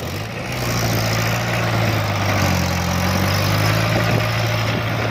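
Diesel engine of tracked farm machinery in a muddy rice field running steadily: a constant low drone over a wide wash of mechanical noise.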